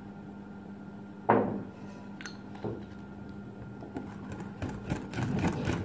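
A metal wire whisk knocking against a glass mixing bowl: one sharp, ringing clink about a second in and a lighter knock a little later. Near the end comes a quick run of light taps.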